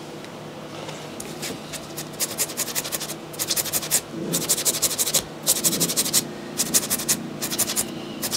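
A small sponge scrubbed quickly back and forth against a sneaker's upper, in short runs of rapid strokes with brief pauses between them.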